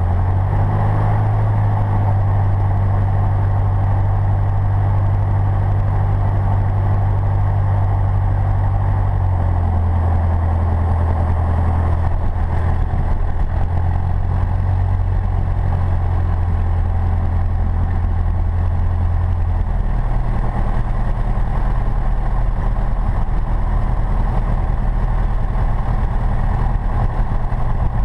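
Single-engine light airplane's piston engine and propeller running steadily at low taxiing power, heard from inside the cockpit. The engine note shifts slightly about a third of the way in and again about two-thirds through.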